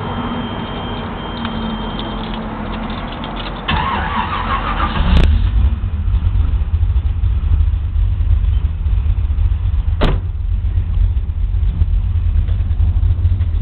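1972 Chevrolet Nova's 383 stroker small-block V8 turning over on the starter and catching about five seconds in, then running with a heavy low rumble as the car pulls away. A sharp click about ten seconds in.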